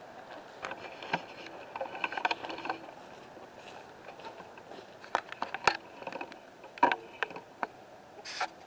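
Scattered knocks and clicks, with some light scraping, from a wooden chicken coop door and its hardware being handled as it is opened.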